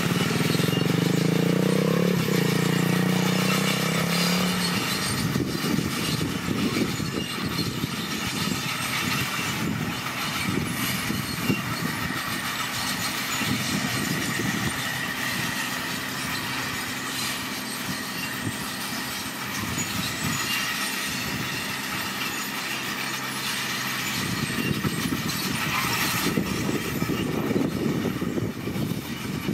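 Komatsu D41PX bulldozer at work: its diesel engine runs loud and steady for the first few seconds, then the engine note drops back under an irregular clatter of the steel tracks.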